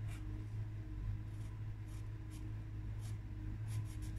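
A few short, light scratching strokes of coloured pencil on paper, spaced irregularly, over a steady low hum.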